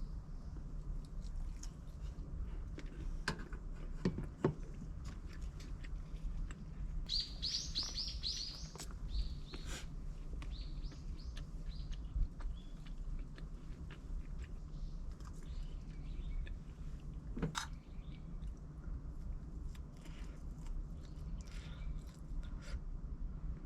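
Small birds chirping, with a quick run of about six high chirps some seven seconds in and scattered chirps after, over a steady low background hum and a few small clicks.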